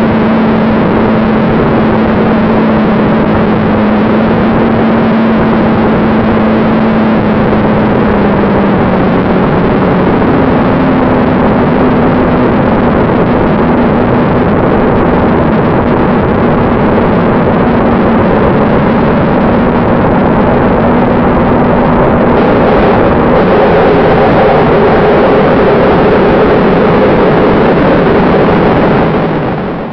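Onboard sound of a radio-controlled BD-5 jet model: a steady rush of air with the whine of its fan motor, whose pitch shifts a few times and rises higher about two-thirds of the way in.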